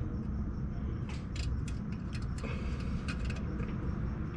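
Small metallic clicks and ticks of a steel cotter pin being worked through a ball-joint stud and castle nut, in two short clusters, over a steady low rumble.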